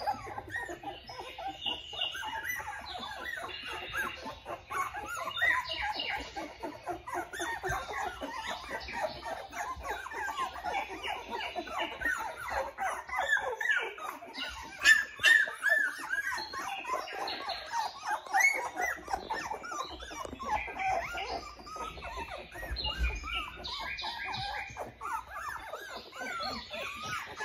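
Litter of very young Australian Shepherd puppies squeaking and whining nonstop, many short high calls that rise and fall and overlap, a few louder squeals about halfway through.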